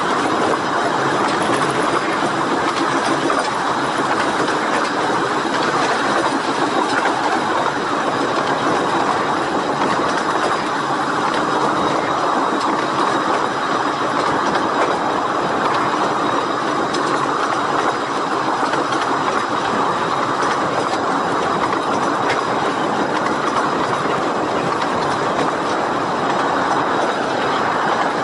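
A 15-inch-gauge steam-hauled train running along the line, heard close alongside a moving carriage: a steady rumble and clatter of wheels on rail that does not change much throughout.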